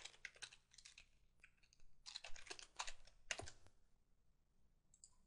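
Computer keyboard typing a short sentence: faint runs of quick keystrokes in several bursts that stop after about three and a half seconds, then a single faint click near the end.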